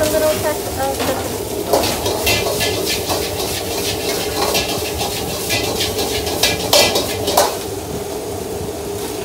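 Fried rice being stir-fried in a wok, with a metal ladle clanking and scraping against the pan in irregular strikes over sizzling. A steady hum from the kitchen's exhaust hood runs underneath.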